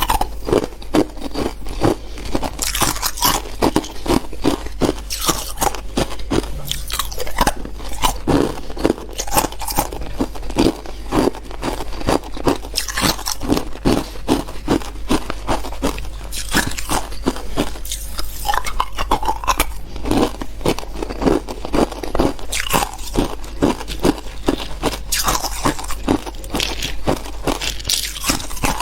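A person biting and chewing hard clear ice, close up: a rapid, continuous run of sharp crunches as the cubes crack and grind between the teeth.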